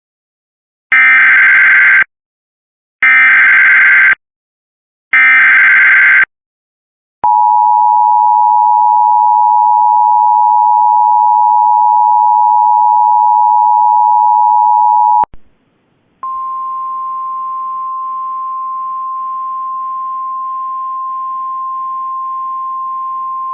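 Emergency Alert System header and attention signal: three one-second bursts of screechy digital header data about a second apart, then the steady two-tone attention signal for about eight seconds. After a brief click and gap, a quieter single steady tone starts and holds.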